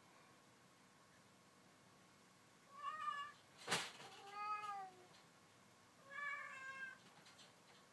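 Corgi-mix dog hiccuping: three short, high-pitched squeaky calls spread over a few seconds, with one sharp hic between the first two.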